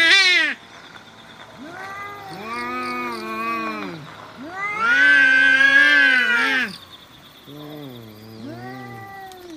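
Cats in a face-off yowling: long, drawn-out calls with wavering pitch, three in a row after a loud one that ends just at the start. The middle call is the loudest and the last is lower. This is the threat caterwauling of two cats squaring off before a fight.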